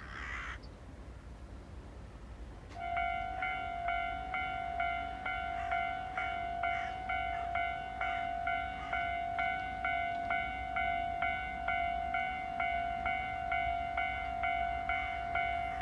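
Japanese railway level-crossing alarm starting up about three seconds in, then ringing steadily at about two strikes a second: the warning that a train is approaching.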